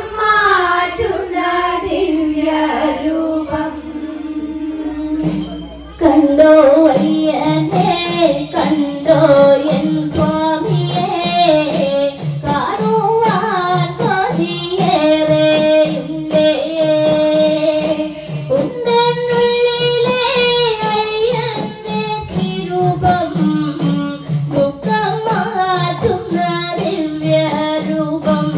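A group of women and girls sing a Malayalam kavadi chinth devotional song. For the first several seconds a sung line is held without percussion; about six seconds in, a tambourine and small hand drums join with a steady beat under the singing.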